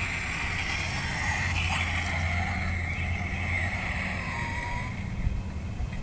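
Electronic sound effect from the remote-controlled DeLorean's onboard sound module: a steady electrical hiss with a low hum that switched on together with the car's lights. The hum drops away a little past halfway.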